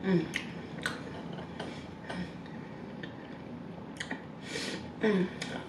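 Close-miked mouth sounds of someone eating fried chicken: wet clicks and lip smacks every half second or so while chewing, with two short falling hums, one at the start and one about five seconds in.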